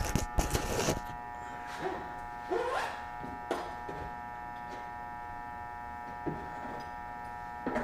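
Camera being set down with a few knocks, then a few light clicks and a short scrape from hand work, over a steady electrical hum.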